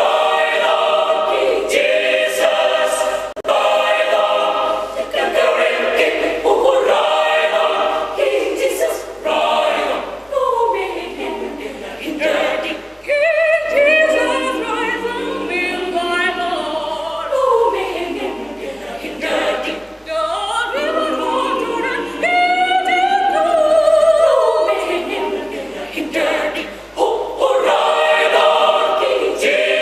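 Mixed choir of women and men singing a gospel piece in several parts, the phrases swelling and falling in loudness with sliding pitches.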